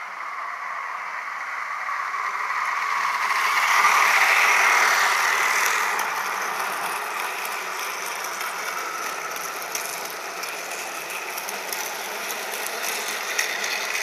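Toy train's electric motor and gears whirring as it runs along plastic track. The whirring grows louder as the train comes close, about four seconds in, then eases off as the cars go by, with light clicks near the end.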